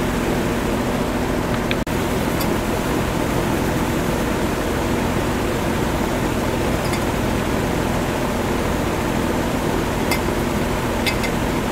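A steady rushing noise with a low hum underneath, with a few faint light metal clicks as a steel washer is handled against the end of a steel pipe.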